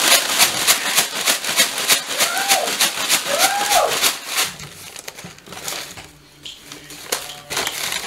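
Bird seed rattling and a brown paper bag crinkling as a lard-coated pine cone is shaken inside the bag. The rapid shaking runs for about four and a half seconds, then gives way to quieter rustling of the bag.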